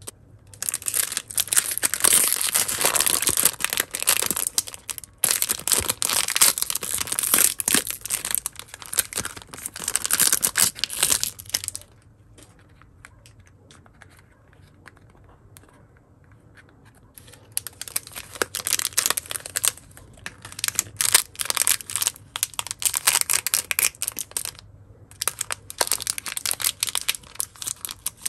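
Plastic and foil toy packaging crinkled and torn open by hand: long stretches of dense crackling with a quiet pause of several seconds in the middle. Near the end a foil blind bag is being torn open.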